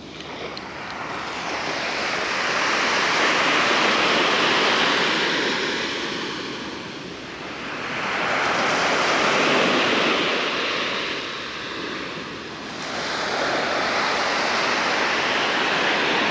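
Sea surf washing onto a beach, the noise of the waves swelling and fading three times.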